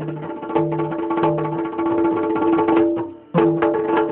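Yakshagana background ensemble (himmela): fast, dense drumming over a steady held drone note, playing for the dancers. The music dips briefly about three seconds in, then comes back with a strong drum stroke.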